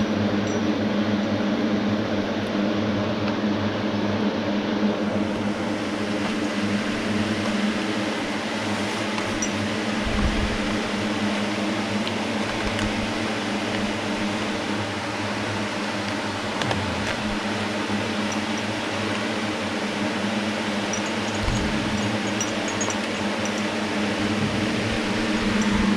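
Steady electric fan hum with a constant rush of air, unchanging throughout; a few faint clicks and knocks of small tools being handled.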